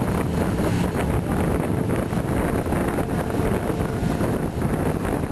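Wind buffeting the microphone over the steady running of vehicle engines as a 4Runner tows a stuck motorhome through soft sand.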